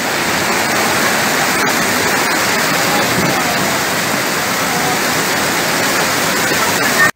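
Muddy flash floodwater rushing down a street in a steady, loud torrent, carrying vehicles along, with heavy rain falling.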